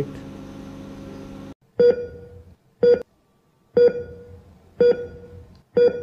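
Heart-monitor beep sound effect: five short electronic beeps, about one a second, each with a fading tail. They begin about two seconds in, after a steady background hum cuts off.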